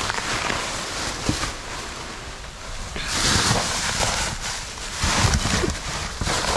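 Rummaging through a dumpster: trash bags and packaging rustling and crinkling, with a few soft knocks. It gets louder about three seconds in.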